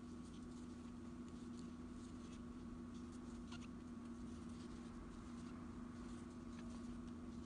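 Faint, irregular little clicks and scratches of a metal crochet hook working yarn through stitches, over a steady low hum.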